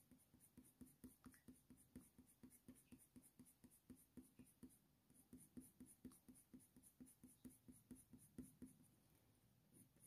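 Faint scratching of a Faber-Castell Polychromos coloured pencil on hot-press watercolour paper, drawn with light pressure in quick short strokes, about four a second. The strokes pause briefly about halfway through and again near the end.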